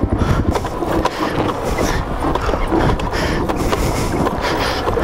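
Suzuki DRZ400S single-cylinder four-stroke engine running at low revs with uneven throttle on rough trail, mixed with scattered knocks.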